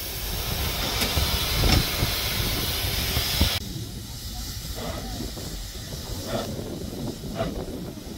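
Steam hissing steadily at close range from Double Fairlie locomotive David Lloyd George while its brake hose and coupling are worked on by hand, with a couple of dull knocks. About three and a half seconds in, the hiss drops to a quieter, more distant steam hiss from a narrow-gauge steam locomotive standing at the platform.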